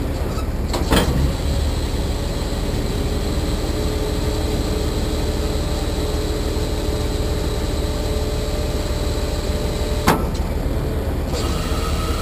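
Freightliner M2 tow truck's hydraulic wheel lift moving, a steady hydraulic whine over the diesel engine's low running. The whine starts with a clunk about a second in and stops with another clunk about ten seconds in.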